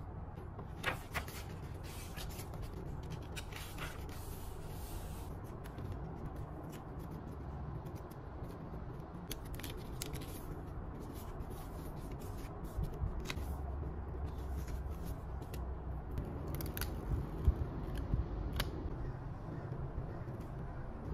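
Paper and sticker handling on a desk: pages and sticker sheets rustling, a sticker peeled from its backing, and small clicks and taps as it is laid down with tweezers, over a low steady hum. One sharper click comes about three-quarters of the way through.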